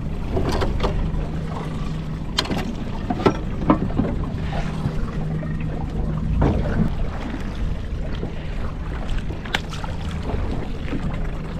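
Small boat's hull sound with water lapping and a steady low hum, broken by a few sharp clicks and knocks from unhooking a fish with pliers on the deck.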